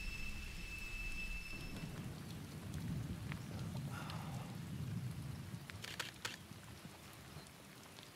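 Rain falling with a low rumble of thunder that swells and fades over the first five seconds. Two sharp clicks come about six seconds in.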